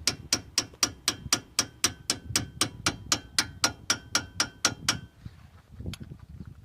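Hammer tapping a steel bar against a stiff Fiat 500 front brake caliper pin to drive it through, in a steady run of light ringing metallic taps, about four a second, that stops about five seconds in.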